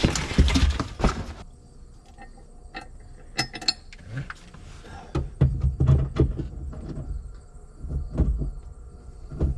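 Scattered metallic clicks, knocks and low thuds of hitching a round baler to a tractor, after a short burst of loud wind-like noise at the start.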